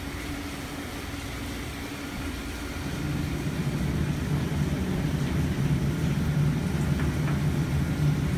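Steady low mechanical hum of commercial kitchen equipment, growing louder about three seconds in, with a couple of faint taps near the end.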